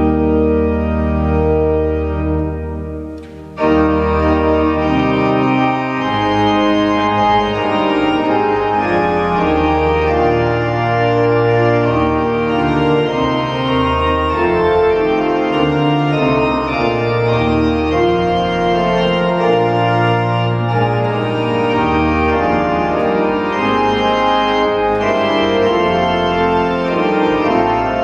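Church organ playing: a held chord fades and stops about three seconds in, then the organ comes straight back in with full, sustained chords that change steadily.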